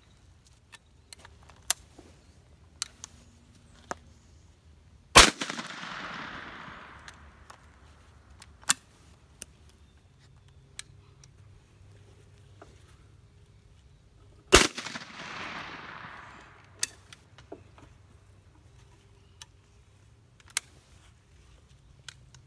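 Stevens .410 single-shot shotgun fired twice, about nine seconds apart. Each shot is a sharp crack followed by a long echo that dies away over two to three seconds. Fainter sharp clicks fall before and between the shots.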